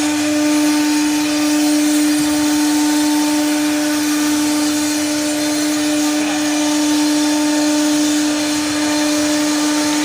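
CNC router spindle running steadily, a constant hum with a broad hiss of cutting and dust.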